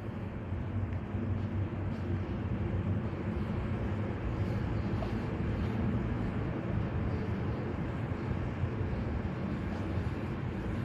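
Steady low hum with a rush of air: the gym's heating system running after the thermostats were turned up.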